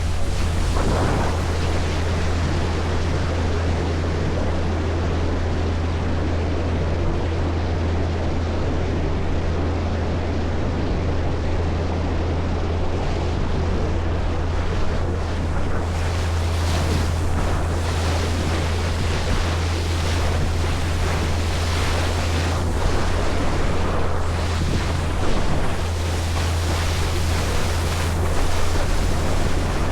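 Passenger ferry underway: a steady low engine drone under the rush of waves and water, with wind buffeting the microphone.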